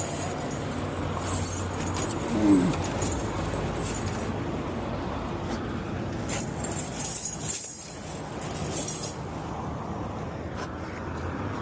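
Truck engine idling under outdoor noise, with light metallic jingling and clinks from tire chains being handled. A brief squeal gliding in pitch about two and a half seconds in.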